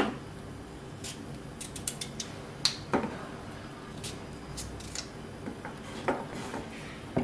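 Small kitchen knife cutting peeled elephant foot yam into long strips on a wooden chopping board: irregular light taps and clicks of the blade striking the board.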